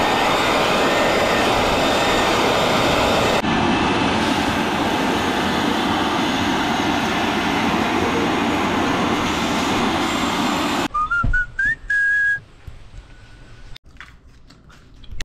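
A loud, steady rushing noise, broken once by a cut, stops suddenly near the end. A short whistle-like squeal, rising in steps, follows, then a few faint clicks.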